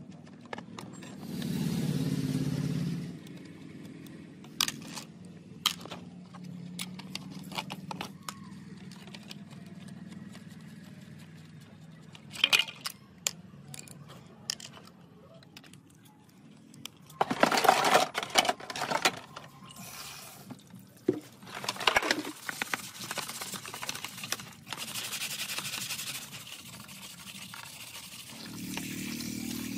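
Hand work on metal parts: scattered clicks, knocks and scraping, with a short hum about two seconds in and a louder spell of scraping and rattling a little past halfway.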